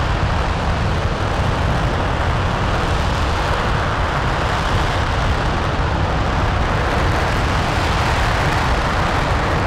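NASA RS-25 liquid-fuel rocket engine (developmental engine E0525) firing steadily during a hot-fire test: a dense, unbroken roar heaviest in the low end, with no change in level.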